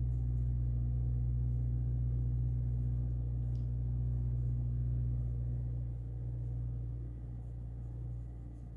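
A steady low hum, easing slightly about six seconds in.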